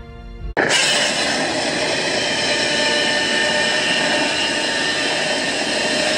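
A loud, steady rushing noise starts abruptly about half a second in and holds without change.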